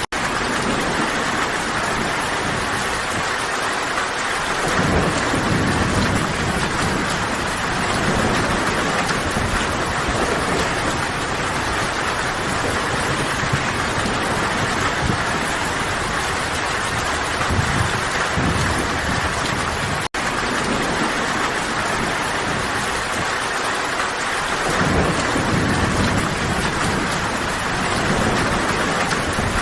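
Steady heavy rain falling, an even hiss, with low rumbles of distant thunder swelling up a few times. The sound cuts out for an instant about twenty seconds in.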